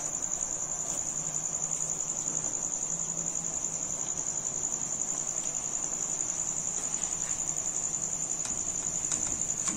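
A cricket trilling steadily at a high pitch throughout, over the bubbling of boiling sugar syrup as boiled rice is poured into the pot and stirred.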